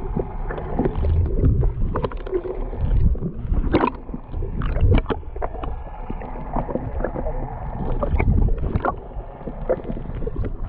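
Open-sea fishing boat: wind buffeting the microphone in uneven low gusts and water moving against the hull, with scattered knocks and clicks from gear on deck.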